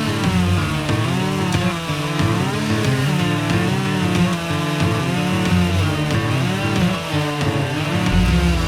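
Two-stroke chainsaw running under load while cutting wood, its engine pitch repeatedly rising and falling.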